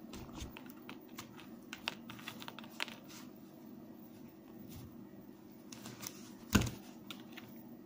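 Quiet clicks and rustles of thick monofilament fishing line being pulled tight in a knot with needle-nose pliers, with one louder knock about six and a half seconds in.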